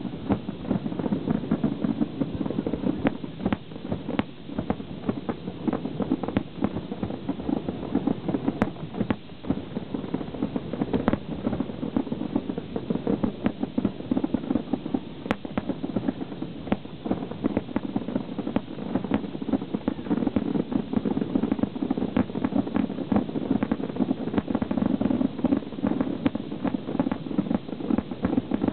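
Aerial firework shells bursting in a dense barrage: a continuous run of sharp bangs and crackles in quick succession.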